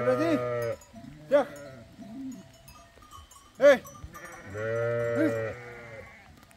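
Several sheep in a crowded flock bleating: a long wavering call at the start, a few short sharp bleats, and another long call past the middle.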